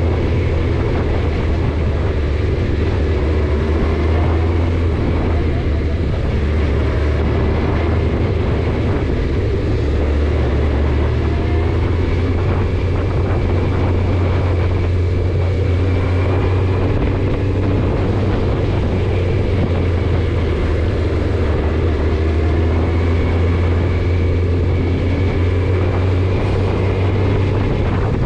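Car interior noise while driving: a steady low drone of engine and tyre/road noise in the cabin.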